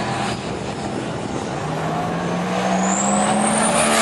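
Twin-turbocharged 1974 Pontiac GTO drag car's engine holding steady revs on the starting line. Over the last second or so a high turbo whistle rises and the engine grows louder as the car launches.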